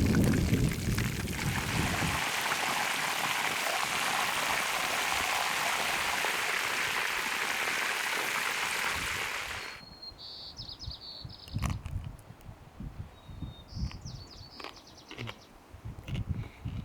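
Steady sizzling of hot oil, such as chebureki frying, that cuts off suddenly about ten seconds in. Quieter scattered clicks and crackles follow, with a few short, high chirping squeaks.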